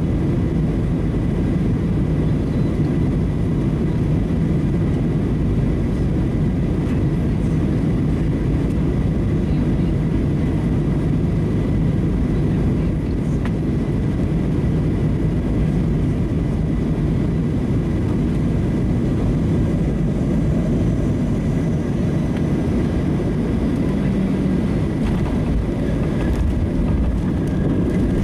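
Cabin noise of a Boeing 737-700 on final approach and landing: a steady, loud rumble of its CFM56 engines and rushing air, with a thin steady whine above it. The main wheels touch down partway through, and the ground spoilers are up on the runway by the end.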